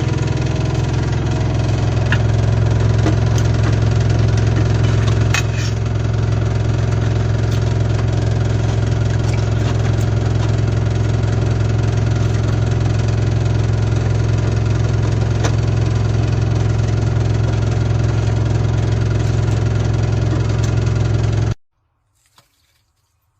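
Dishwasher drain pump motor running with a steady low hum and light rattling clicks, then cutting off suddenly about 21 seconds in.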